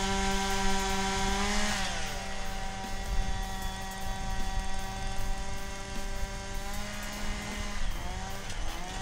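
Powered ice auger's small engine running at high speed. Its pitch drops about two seconds in and holds lower, then dips and climbs back near the end as the bit bites into the ice.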